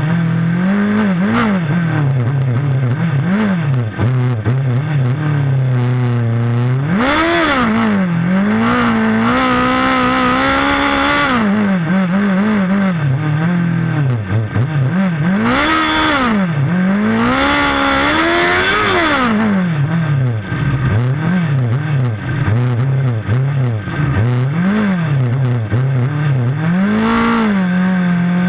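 Micro sprint car's racing engine idling, blipped on the throttle again and again, with a few longer revs that climb and hold for a couple of seconds before dropping back to idle.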